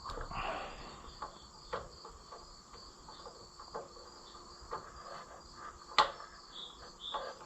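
Crickets chirping steadily, with scattered light metallic clicks and taps of hand tools working on the engine's valve gear during a valve adjustment; one sharp click about six seconds in is the loudest sound.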